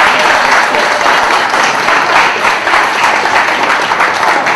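Audience applauding, many hands clapping densely and steadily, easing off slightly near the end.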